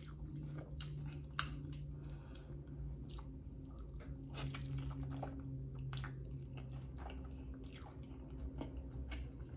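Close-up wet chewing and biting of a sauced chicken wing dipped in creamy dressing, with many short smacking mouth clicks.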